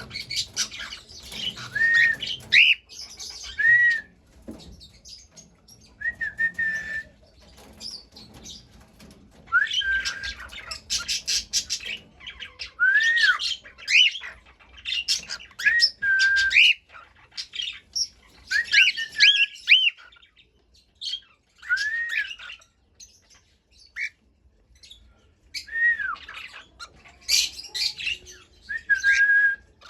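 Cockatiels chirping and calling in bursts: short arched whistled calls mixed with harsher squawky chatter, with brief pauses between bouts.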